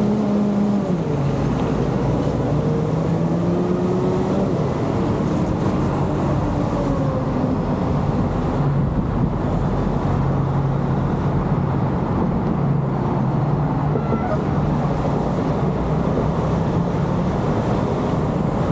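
Car engine and road noise while driving. The engine note rises in pitch and drops back twice in the first five seconds, then holds steady over a constant rush of tyre and road noise.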